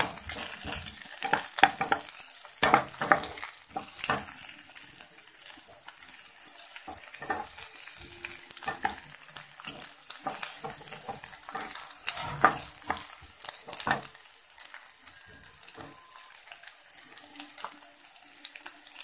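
Sliced onion sizzling in hot oil in a pan, frying until it turns red, while a wooden spatula stirs it with repeated scrapes and knocks against the pan. The stirring strokes thin out after about fourteen seconds, leaving mostly the steady sizzle.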